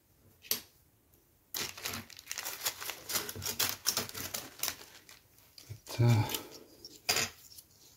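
A thin clear plastic bag crinkling as hands rummage in it and hard plastic model-kit parts click against each other. It starts about a second and a half in and lasts around four seconds.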